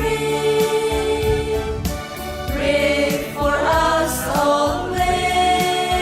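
Church choir singing a hymn with long held notes over instrumental accompaniment with bass notes.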